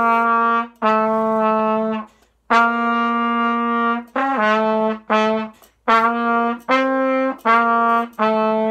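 Solo trumpet playing a slow beginner exercise: a string of separately tongued, held notes with short breaks between them. The notes move back and forth between C and the newly learned low B, fingered with the middle valve, with one step up to D.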